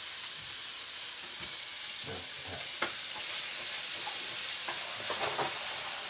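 Diced onions and peppers sizzling in olive oil in a frying pan while being stirred with a wooden spoon, with a sharp click about three seconds in.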